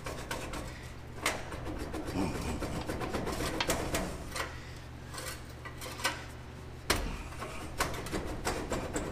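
Metal scraping and rubbing with scattered sharp knocks as a wedged part is worked loose by hand, the loudest knock about seven seconds in, over a low steady hum.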